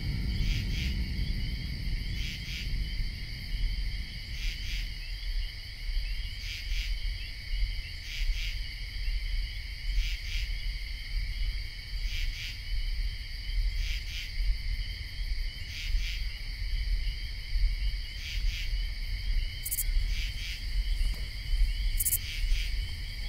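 Night-time crickets chirping in a steady chorus that swells in short pulses every second or two, over a low steady rumble.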